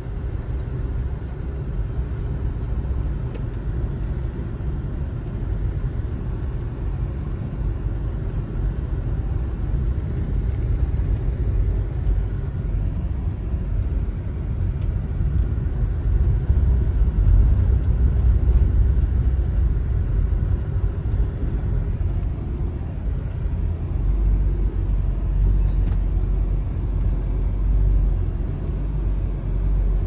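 Car driving slowly along a gravel track, heard from inside the cabin: a steady low rumble of tyre and road noise that swells a little twice in the second half.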